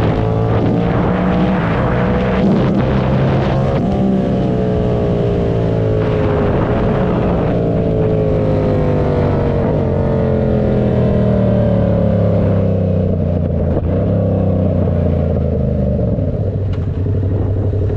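The 2013 R7's engine under way. It pulls up in revs for about the first four seconds, then winds down in a long, slow fall in pitch as the vehicle decelerates.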